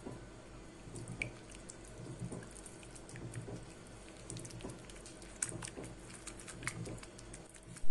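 A silicone pastry brush beating an egg yolk in a small ceramic bowl: soft wet squishing with irregular light clicks of the brush against the bowl.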